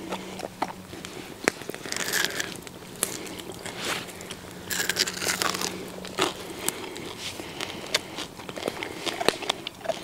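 German Shepherd puppy biting and chewing pieces of cooked chicken, with crunching, over a campfire crackling with scattered sharp pops.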